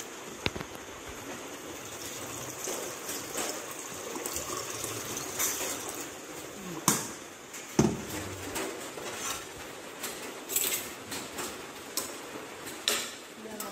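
Water poured from a stainless electric kettle into a metal cooking pot, then clinks and knocks of metal kitchenware and the pot as it is stirred.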